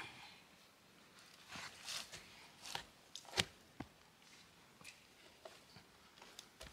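Quiet handling of snow-covered felled tree trunks: brief rustles and scrapes of hands, bark and snow, with scattered light knocks, the sharpest about three and a half seconds in.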